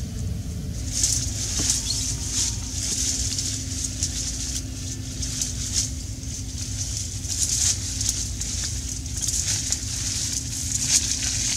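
Irregular rustling and crackling, many short bursts at uneven intervals, over a steady low rumble.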